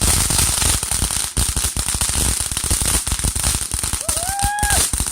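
Fireworks going off: a rapid, continuous crackle of many small bangs, with a short whistle about four seconds in.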